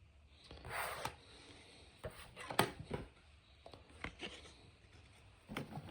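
Trading cards and their packaging being handled on a table: a brief rustle, then a few light taps and clicks.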